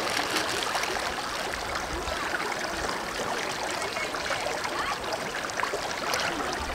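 River water flowing steadily around rocks, a continuous rushing hiss.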